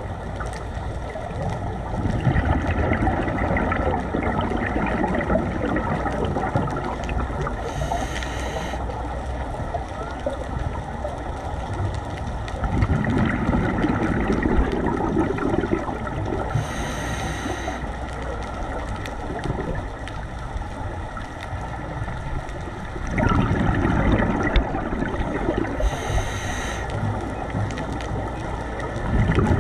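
Scuba regulator breathing heard underwater: long rushing, bubbling exhalations about every ten seconds, each followed a few seconds later by a short hiss of inhalation through the regulator, over a steady low rumble.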